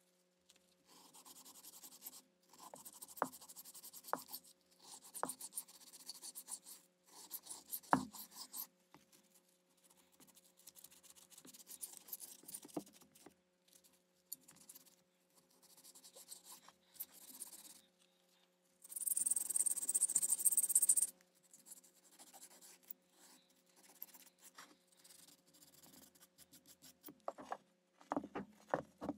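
Sandpaper rubbed by hand over the bare metal case of a Thomas 600-8 airbrush compressor, in repeated scratchy strokes of a second or two with short pauses, the strongest stroke about two-thirds of the way through. A few sharp knocks come as the case is handled, and a faint steady hum runs underneath.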